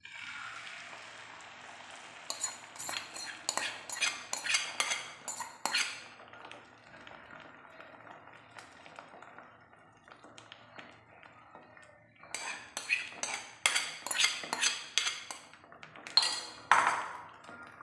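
Egg and vegetable mixture going into hot melted butter in a small frying pan: a sizzle that starts at once and settles lower. A metal spoon clinks and scrapes against the bowl and pan in quick runs of taps, a couple of seconds in and again near the end.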